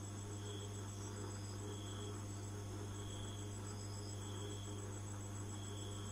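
Steady low mains hum from a homemade TTC5200 transistor amplifier and its speaker, idling with no music signal at its input. Faint short high chirps sound now and then over the hum.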